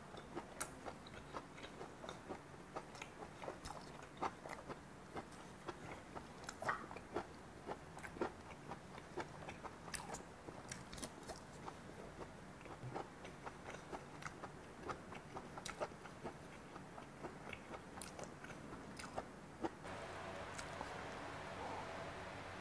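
Close-up chewing of pan-fried Korean zucchini (aehobak-jeon): soft, irregular clicks a few times a second. A steady rustle starts near the end as a napa cabbage leaf is handled.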